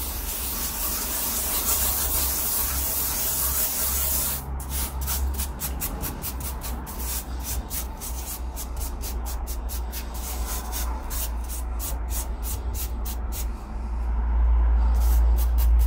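A hand brushing coarse sand across a paper card. It starts as a continuous hissing sweep, then turns into many quick separate swishes several times a second, which thin out near the end. A steady low rumble runs underneath and grows louder near the end.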